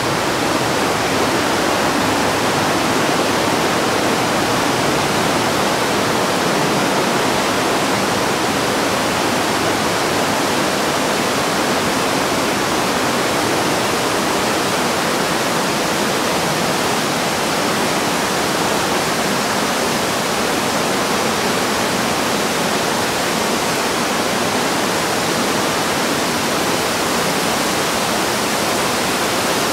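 Waterfall pouring into a narrow rock gorge, with the Breitach river rushing below it: a steady, loud rush of water.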